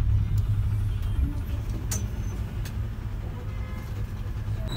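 Steady low rumble of a city bus, engine and road noise heard from inside the passenger cabin, with two sharp clicks a couple of seconds in.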